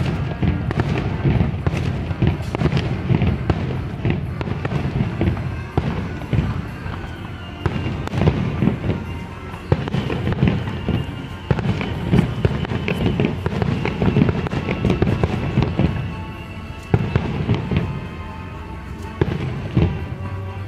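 Aerial fireworks going off in a dense barrage: a fast run of bangs and booms with crackling bursts, easing briefly twice before picking up again.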